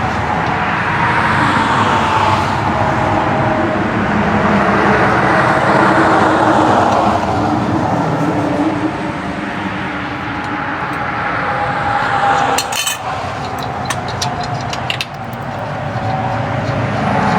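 Road traffic noise, with vehicles passing one after another, their tyre and engine noise swelling and fading over a few seconds each. A few sharp clicks come about two-thirds of the way through.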